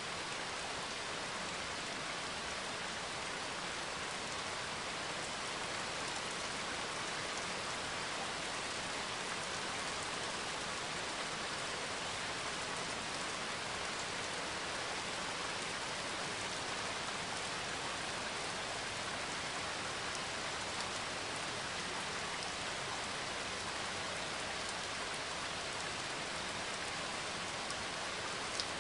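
Steady, even hiss like falling rain, unchanging throughout, with one brief tick near the end.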